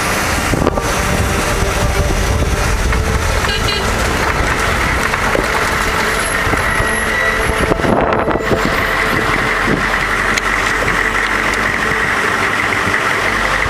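Steady engine and road noise of a moving vehicle, heard from on board as it drives along a dirt road.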